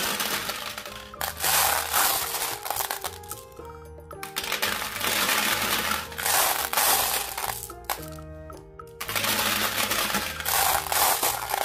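Glass marbles clattering against each other and against plastic as handfuls are scooped from a bowl and dropped into the drum of a toy cement mixer truck, in three long rattling stretches. Background music plays underneath.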